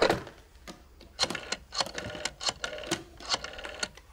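Old black desk telephone: the handset is lifted off its cradle with a clatter, then about three seconds of rapid, metallic mechanical clicking and rattling from the phone as a call is placed.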